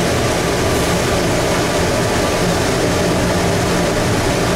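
Airport automated people-mover train running at speed through a tunnel, heard from inside the car: a steady running noise with a low hum underneath.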